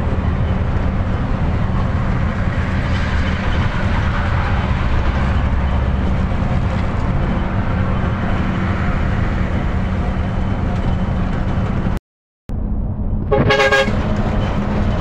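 Diesel bus engine droning steadily with road noise, heard from inside the cab. The sound cuts out for a moment near the end, then a horn honks briefly.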